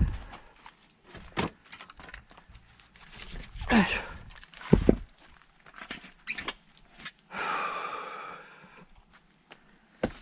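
Firewood being split by hand: a series of sharp strikes and cracking knocks on wood, the loudest about four to five seconds in. A longer rasping noise follows near the end.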